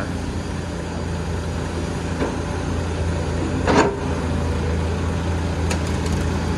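Steady drone of heavy diesel engines, a Volvo excavator working beside a dump truck, as the excavator loads wet soil into the truck bed. A single sharp knock stands out a little over halfway through.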